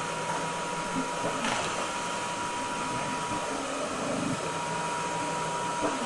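Mechanical insufflation-exsufflation (cough assist) machine running, with steady blower noise and a thin steady tone through it, giving assisted coughs through a tracheostomy.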